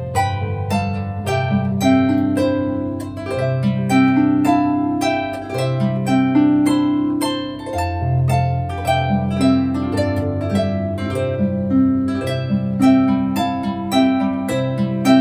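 Background solo harp music: a flowing line of plucked notes over slower, lower bass notes.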